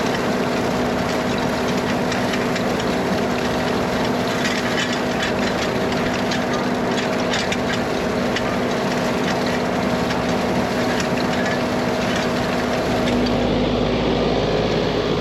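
Tractor engine running steadily while pulling a hay tedder through the field, with a constant clatter and rattle of machinery over the engine drone.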